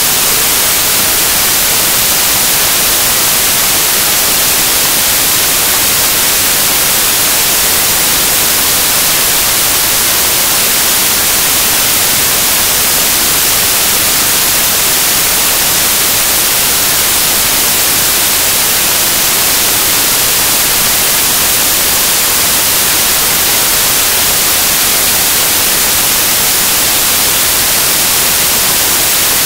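Loud, steady static hiss like white noise, even across all pitches and strongest in the highs, with nothing else heard through it.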